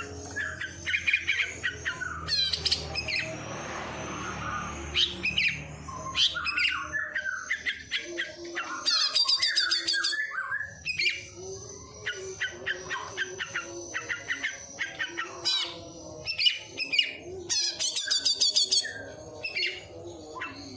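A songbird singing a long, varied song of quick chirps and rapid trills, imitating the calls of sparrows and prinias.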